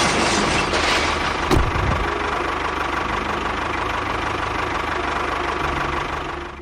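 A small engine idling steadily with an even, knocking beat, with one short sharp knock about a second and a half in.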